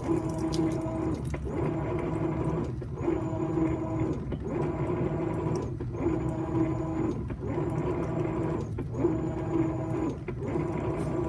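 Whirlpool Cabrio top-load washer, which has no agitator, running its wash stroke: the drive motor whirs in even pulses of about a second with short pauses, about one every second and a half, as the wash plate turns the load around in a circle.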